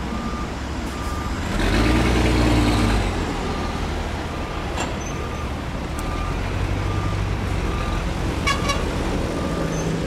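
Heavy diesel construction machinery running, with a reversing alarm beeping steadily about once every three-quarters of a second. The engine surges louder with a hiss for a second or so near the start, and there is a short burst of higher beeping near the end.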